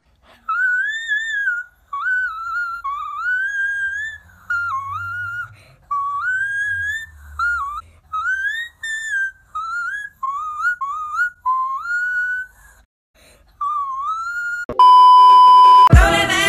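Whistling of a wandering tune in short, gliding phrases that rise and fall. Near the end a loud steady beep tone lasts about a second. Loud music then starts abruptly.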